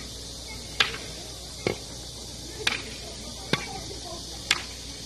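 Five sharp knocks about a second apart from a kung fu staff being wielded in a staff form, over a steady hiss.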